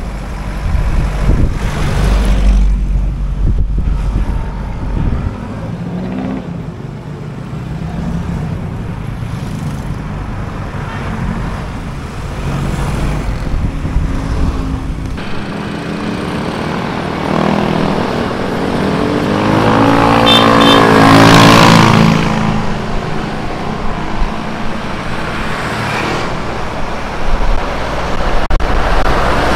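Road traffic: vehicle engines running and passing, with one vehicle passing close and loud about two-thirds of the way through.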